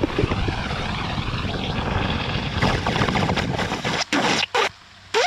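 Homemade ejector's corrugated suction hose, driven by an electric pump, drawing in pond water at the surface: a steady rushing noise that about four seconds in breaks up into short bursts with brief gaps as the hose mouth takes in air along with the water.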